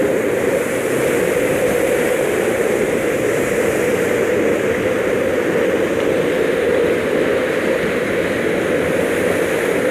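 Steady rushing noise of water at a waterfall, even and unbroken.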